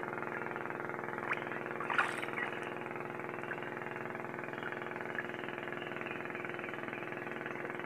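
A small engine running steadily at an even pitch, with a couple of faint clicks about one and two seconds in.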